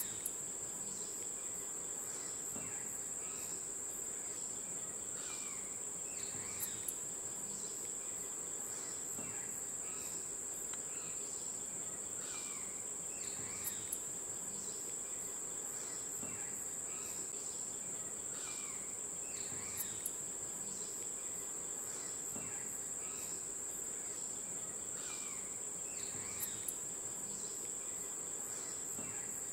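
Steady, high-pitched insect chorus. Short bursts of clicks stand out about every six to seven seconds, with faint, repeated falling chirps underneath.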